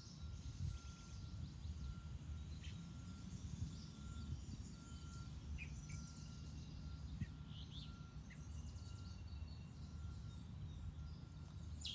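Outdoor ambience: a low steady rumble with scattered short bird chirps, and a faint high note repeating at an even pace.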